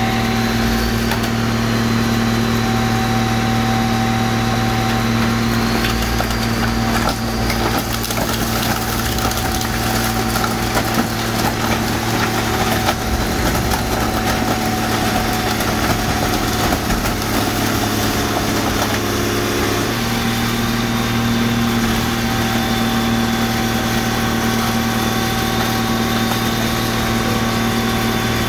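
Car crusher's engine and hydraulic pump running steadily under load while the press flattens a Dodge Caravan minivan. The van's body crumples and its glass cracks and pops in scattered sharp snaps from about six to twenty seconds in. The engine note shifts near twenty seconds.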